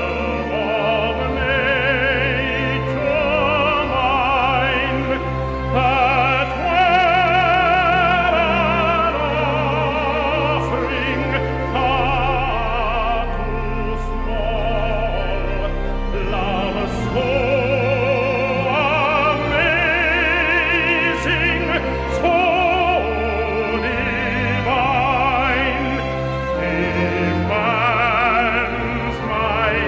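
A recorded hymn sung in an operatic style, with long held notes and wide vibrato, over instrumental accompaniment.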